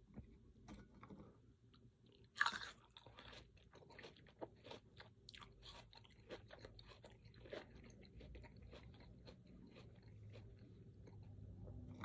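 Close-up eating sounds: one sharp crunching bite about two and a half seconds in, followed by a run of crunchy chewing clicks that grow sparser toward the end.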